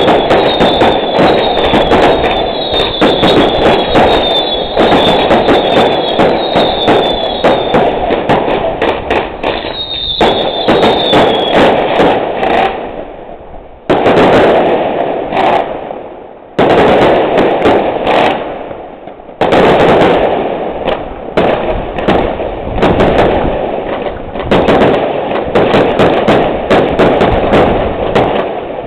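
Fireworks display: dense crackling and bangs from bursting aerial shells, with a short high whistle repeating over and over through the first ten seconds or so. Near the middle, three loud bursts come a few seconds apart, each dying away after it.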